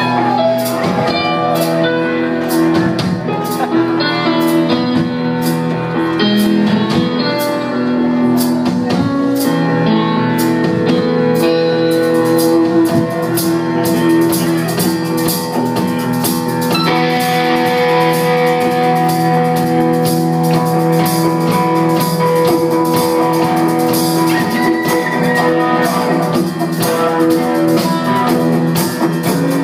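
Live rock band playing, with electric guitar and drum kit keeping a steady beat under sustained held notes.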